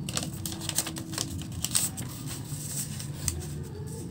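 A sheet of notebook paper rustling and crinkling as it is handled, with irregular light clicks and crackles.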